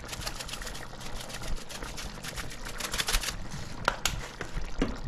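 Red pepper flakes being shaken from a plastic shaker bottle, a fast dry rattle of small clicks that stops about three seconds in. A couple of sharper knocks follow near the end.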